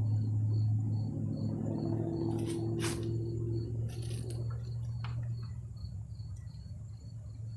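Steady low hum with a high, even chirping about three times a second, and a few sharp clicks a few seconds in.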